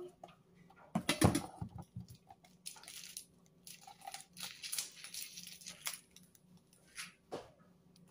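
Plastic bag wrapping crinkling and rustling as a wrapped jar is handled, with a loud knock about a second in and a couple of short taps near the end.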